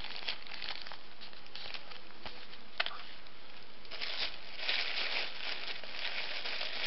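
Clear plastic bag crinkling as it is handled, with one sharp click a little before halfway; the crinkling grows louder and denser over the last few seconds.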